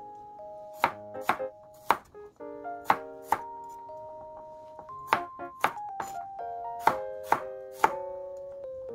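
Chef's knife slicing whole garlic cloves on a bamboo cutting board: about a dozen sharp knocks of the blade hitting the board, coming in small irregular clusters, over background music.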